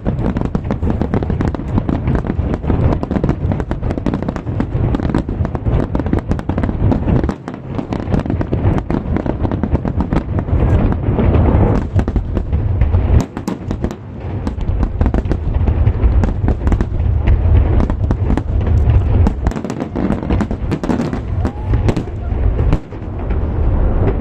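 Aerial firework shells bursting in a dense, rapid barrage, the booms and sharp reports overlapping almost without pause apart from a few brief lulls. This is the closing finale of the display.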